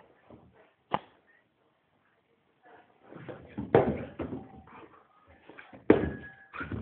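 Border collie pouncing on and worrying a popped volleyball: sharp thumps about a second in and louder ones near four and six seconds, with scuffling between.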